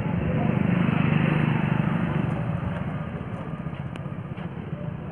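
A motor vehicle's engine running close by, growing louder about a second in and then fading away.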